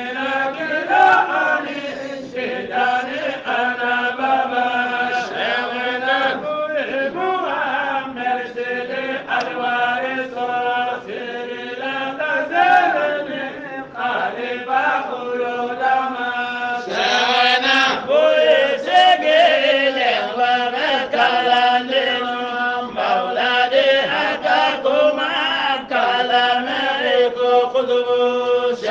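Voices chanting a kassida (qasida), an Islamic devotional praise poem, in a continuous wavering melody over steady held notes, swelling a little louder about two-thirds of the way through.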